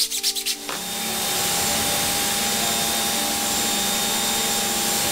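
Greenworks electric pressure washer starting up less than a second in, then running steadily: a loud spray hiss over the hum of its motor and pump.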